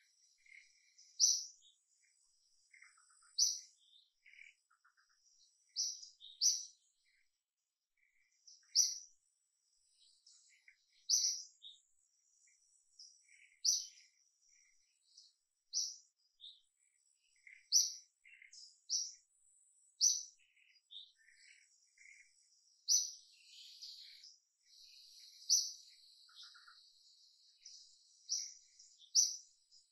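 Forest birdsong: a bird giving short, high chirps about every two seconds, with fainter twittering in between. A steady high insect drone joins in about two-thirds of the way through.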